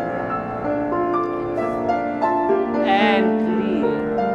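Background piano music of held notes changing every half second or so, with a brief wavering tone about three seconds in.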